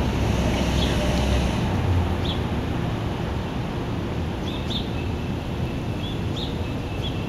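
Outdoor ambience: wind buffeting the microphone with a low rumble, and short bird chirps scattered throughout. A faint steady high tone comes in a little past halfway.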